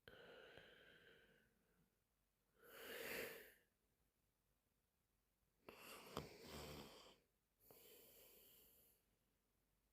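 A sleeping woman's heavy breathing and soft snoring: four slow breaths, some with a faint wheezy whistle. The third breath, about six seconds in, has a short rattling snore.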